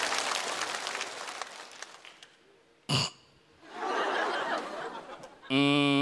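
Studio audience applause and laughter dying away, then about three seconds in a single short, sharp vocal noise, a sudden sniff or sucking-in of breath, that draws another burst of audience laughter. Near the end a loud steady pitched sound lasts about a second.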